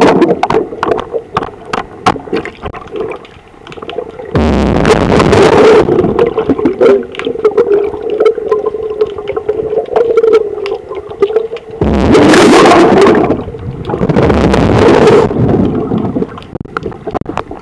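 Underwater sound at a boat's hull: three loud rushes of bubbling water, about four seconds in, about twelve seconds in and again soon after, with scattered clicks and a steady hum between them.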